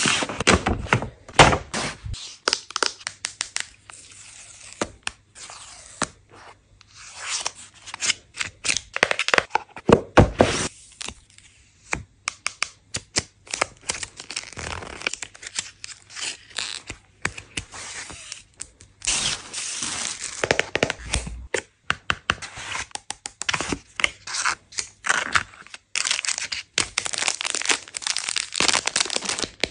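Paper and plastic packaging handled close to the microphone: a folded paper leaflet and clear plastic wrappers are unfolded, peeled, torn and crinkled by fingers, in quick irregular bursts of crackles and rustles.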